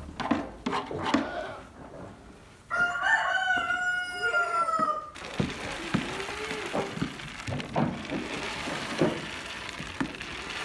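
A rooster crows once, a long call of about two and a half seconds near the middle. Around it are knocks and short goat bleats, and from about halfway a steady hiss sets in.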